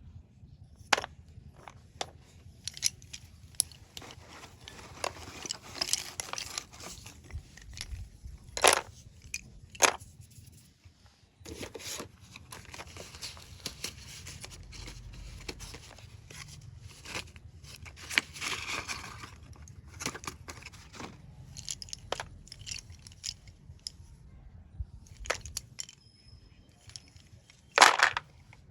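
Chalky slate pencils being handled and scraped: sharp clicks and crunches scattered throughout, with stretches of gritty scraping as the gritty outer layer is rubbed off. The loudest snaps come near the end.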